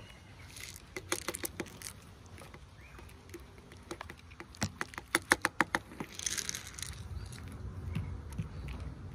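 Dry cat kibble being tipped out of a plastic jar onto wooden boards, heard as a quick run of sharp clicks about halfway through, with cats crunching the food. A brief hiss follows shortly after the clicks.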